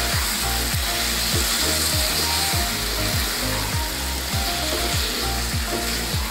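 Chicken pieces in thick masala gravy sizzling in a nonstick pan while a wooden spatula stirs them. Background music with a steady beat of about three drum thumps a second plays throughout.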